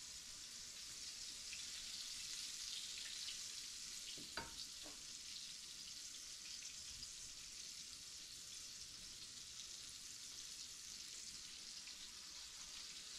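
Flour-dredged thin chicken breast fillets frying in grease in a skillet on medium heat: a faint, steady sizzle, with a light knock about four and a half seconds in.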